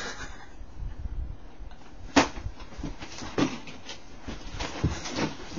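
Scattered knocks, thumps and shuffling of people moving about a small room, with one sharp knock about two seconds in the loudest.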